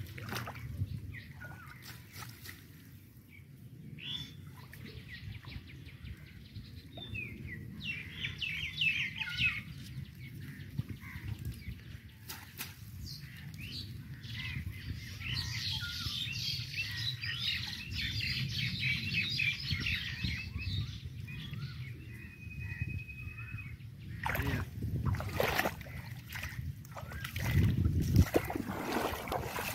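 Small birds chirping in bursts of quick, high notes, over a low steady rumble. Near the end come several sharp splashes of water as the cast net is handled in the pond.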